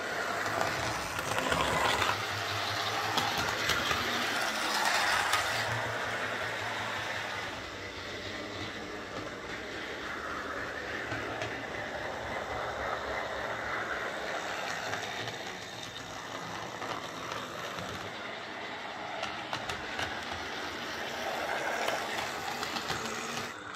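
Triang R52 Jinty 0-6-0 tank model locomotive running on OO gauge layout track: a steady whirr of its motor and wheels on the rails, louder for the first six seconds or so and then a little softer. Its motor, cleaned and oiled with a new insulating sleeve, runs smoothly.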